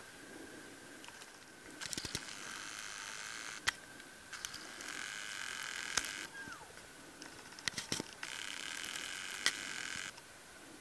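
Video camera handling and zoom noise: a motor whir in three stretches of a second or two, each set off by sharp clicks, over a faint steady high whine.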